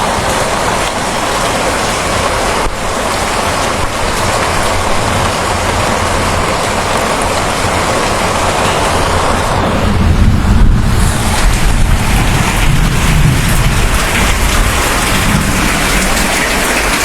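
Steady, loud rainfall, with a deep rumble of thunder rising about ten seconds in and fading over the next few seconds.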